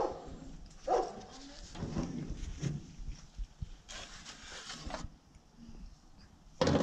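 Sheet-metal charcoal oven being worked by hand: a short metallic clank at the start and another about a second in, then a metal baking tray scraping along the oven's wire rack for about a second, and a louder clatter of tray and metal near the end.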